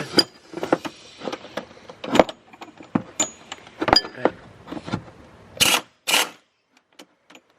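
Small metal clinks and knocks of tools and bolts being worked on an engine's water pump, with two short scraping bursts a little past the middle.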